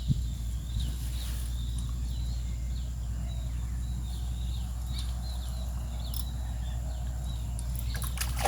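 Small birds chirping repeatedly over a steady low rumble, then water splashing near the end.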